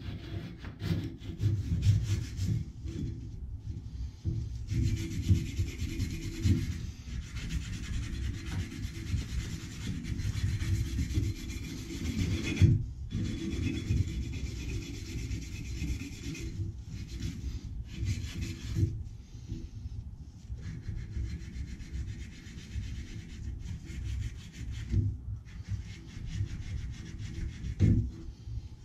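A strip of abrasive cloth rubbed quickly back and forth around a 1/2-inch copper water pipe, a rapid scratching that pauses briefly a few times.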